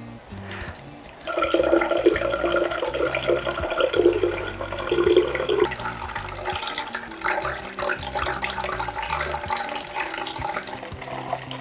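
Green juice pouring from a juicer jug through a metal sieve into a glass jar, then a spoon stirring and scraping the pulp in the sieve as the juice drains through.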